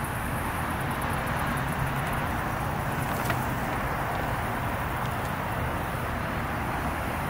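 Steady outdoor background noise: a constant rumble with a low steady hum, and one short click about three seconds in.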